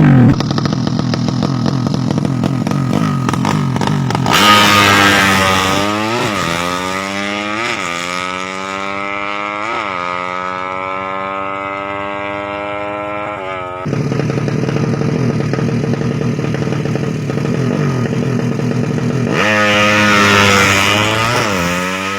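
Yamaha Jupiter Z motorcycle engine running during a tune-up, its throttle blipped repeatedly so the revs rise and fall several times between spells of steadier running.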